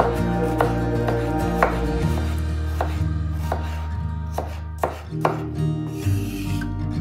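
Large chef's knife chopping an onion on a bamboo cutting board: a series of sharp knocks of the blade on the wood, roughly two a second and unevenly spaced. Soft background music plays under it.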